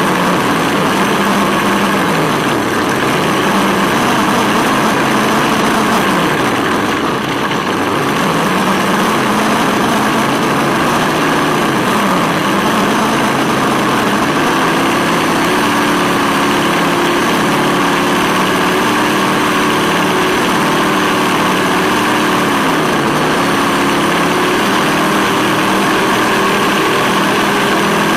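Simulated V8 engine sound from a Sense Hobby ESS-One sound module's speaker on a 1/10 RC buggy. Its pitch falls and rises with the throttle several times and holds higher for a long stretch after the middle, over a steady hiss.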